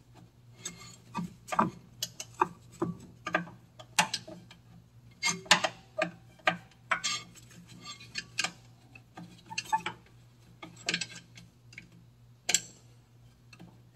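Rear drum brake star-wheel adjuster on a 1948 Chevrolet clicking notch by notch as a screwdriver through the backing-plate access hole turns it, its spring steel tab snapping over the cogs; irregular sharp clicks, one or two a second. The shoes are being adjusted out until the drum starts to drag.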